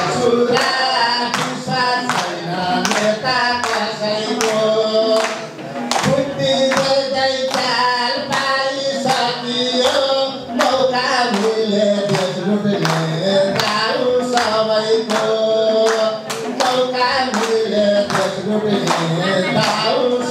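A man singing a Nepali poem into a microphone to a steady, repeating folk-style tune, with hands clapping along in time, about two claps a second.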